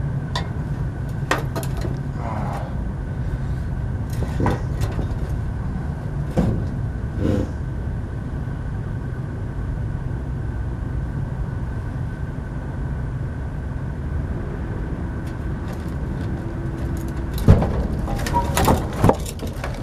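Scattered knocks and clanks from metal parts being handled, with a cluster of louder knocks near the end, over a steady low hum with a thin whine.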